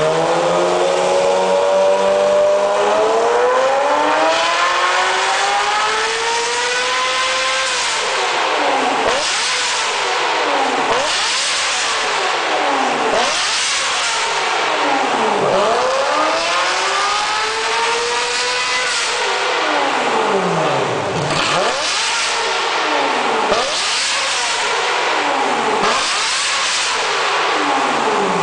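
Ferrari F355's V8 revving loudly through an aftermarket GIBA stainless steel exhaust. It climbs steadily to high revs over the first eight seconds and drops back, then gives a run of quick rev blips, each rising and falling back toward idle, with a second longer climb about halfway through.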